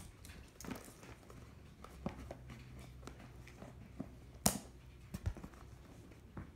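Handling noises: scattered soft knocks and rustles over a faint low hum, with one sharp click about four and a half seconds in.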